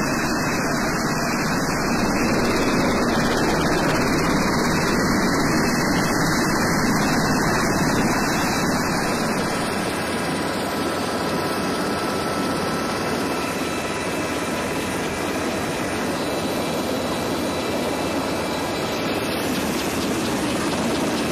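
Medevac helicopter landing close by: its turbine engines and rotor wash make a loud, steady rush of noise.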